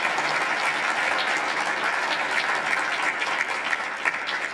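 Audience applauding steadily: a full round of many hands clapping.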